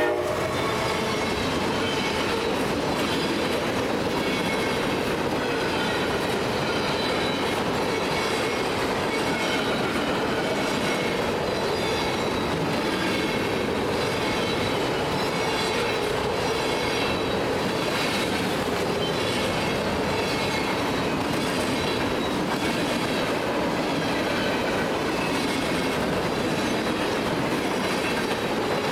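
Norfolk Southern freight train of flatcars loaded with trash containers rolling steadily past. The wheels make a continuous rumble on the rails, with clickety-clack at the rail joints and a faint high wheel squeal.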